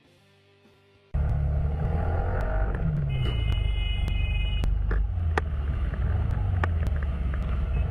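Street traffic with a motorcycle's engine running, a loud low rumble that cuts in abruptly about a second in. A steady high-pitched tone sounds for about a second and a half in the middle, and there are a few sharp clicks.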